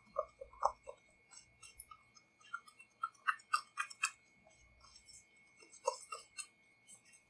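Spoon clicking and scraping against a small container while food coloring is stirred into royal icing, in irregular clusters of light taps.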